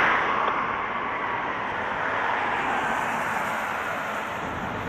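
Fire apparatus engine running with a steady rumble and hiss, a little quieter after the first second.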